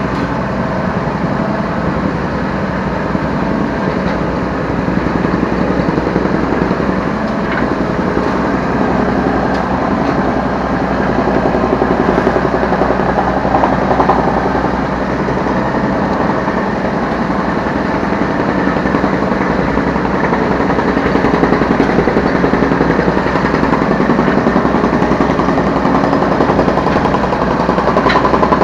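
Yanmar B3Σ 3-ton mini excavator's diesel engine running steadily as the machine works, heard from the operator's seat, swelling in loudness in a few stretches.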